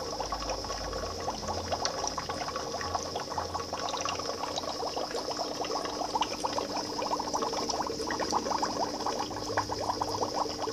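Aquarium water bubbling and splashing at the surface where a tube feeds into the fry tank, a quick, continuous crackle of small bubbles over a steady hum.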